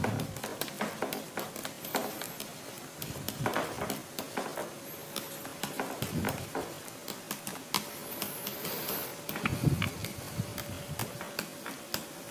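Pen writing strokes: irregular short scratches and taps as an answer is written out, over a faint steady electrical hum.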